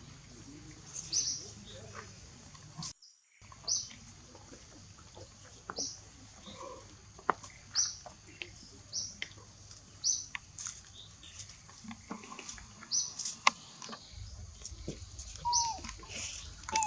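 A bird repeating a short, high chirp about once a second, with scattered light clicks and rustles; a brief dropout about three seconds in and a short falling squeak near the end.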